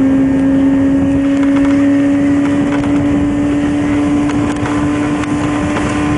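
A steady motor drone that rises very slowly in pitch, over a rough low rumble of wind on the microphone.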